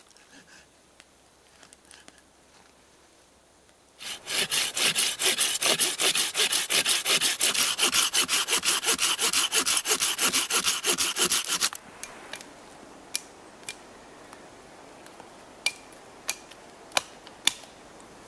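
Hand saw cutting through a dead wooden branch in fast, even back-and-forth strokes, loud for about eight seconds before stopping. A few sharp snaps follow near the end.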